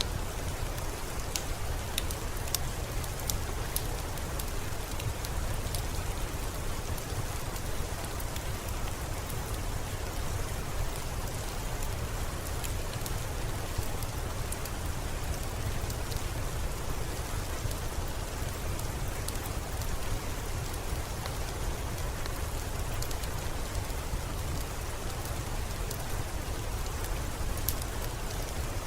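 Steady rain with a deep low rumble, and sharp ticks of single drops striking throughout.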